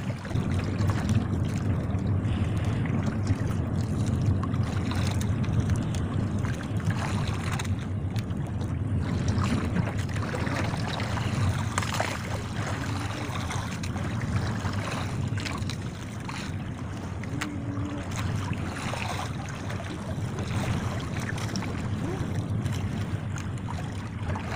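Steady wind buffeting the microphone over a choppy sea, with scattered splashes as a multi-hook line loaded with Indian mackerel is hauled up through the water beside the boat.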